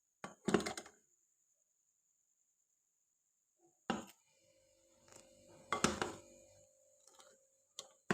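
Utensils knocking and clinking against a small metal tea pan of boiling milk on a gas stove: a thunk about half a second in, another about four seconds in, then a short run of clattering around six seconds in.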